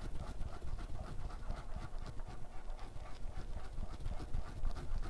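Wooden spoon stirring thick cheese sauce in a saucepan, a quick, even rhythm of strokes about four a second.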